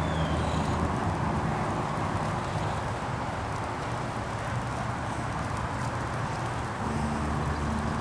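Motor vehicle engine running, a steady low hum under a haze of outdoor noise; a deeper, stronger engine note comes in about seven seconds in.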